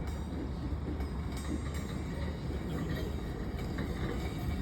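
Loaded stone freight train moving slowly, with a steady low rumble and a few faint clicks.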